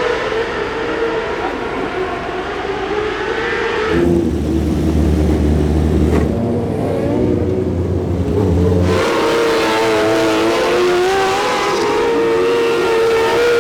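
Racing micro sprint car engines at high revs on a dirt track. The pitch rises and falls as the cars accelerate and lift, with an abrupt change in the sound about four seconds in and again about nine seconds in.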